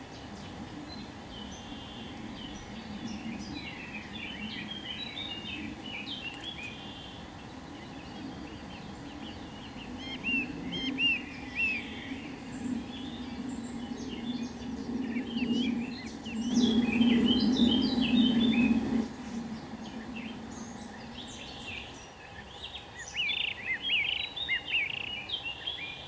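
Small songbirds chirping and twittering in quick short notes, in several bursts, over a steady low background rumble that swells for a couple of seconds about two-thirds of the way through.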